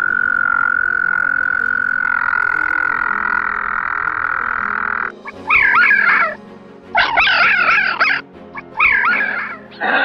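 A frog calling in one long, steady trill that stops about five seconds in. Then a red fox gives three short bursts of quick, wavering high yelps.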